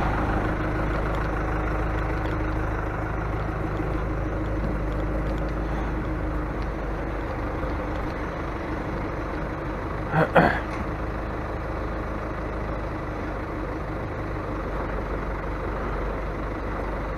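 A vehicle's engine running steadily at idle, with two quick, loud sharp bursts about ten seconds in.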